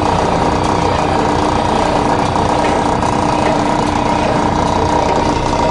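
Escalator machinery running steadily, recorded up close: a dense, even mechanical rattle with a constant hum.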